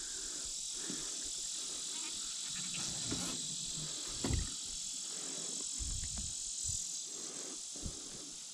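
Steady high-pitched chorus of insects, with a few soft low thumps scattered through it.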